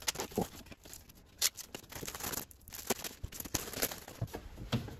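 Clear plastic wrapping being torn and peeled off a new wooden-framed whiteboard: irregular crinkling and crackling with many short sharp snaps.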